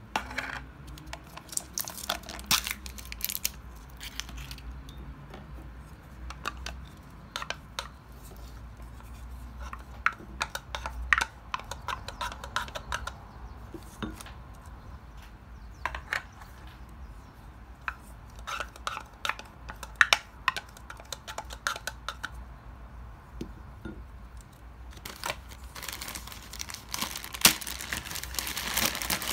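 Household handling sounds: scattered clicks and clinks of small objects being set down and moved, over a low steady hum in the first ten seconds or so. Near the end comes a stretch of dense crinkling, like packaging being handled.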